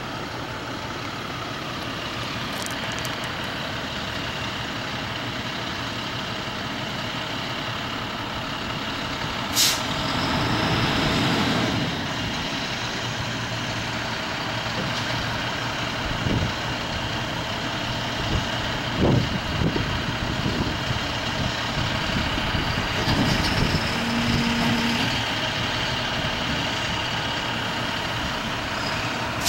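A garbage truck's engine running steadily, with a sharp hiss of air brakes about ten seconds in, followed by a louder couple of seconds.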